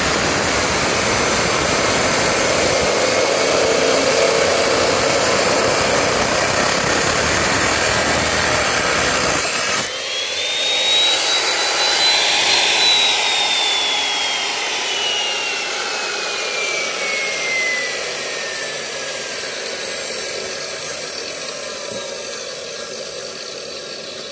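Abrasive cut-off saw's disc grinding through a large steel channel beam with a loud, dense noise that stops abruptly about ten seconds in as the cut finishes. The motor's whine then rises briefly and falls steadily as the disc spins down.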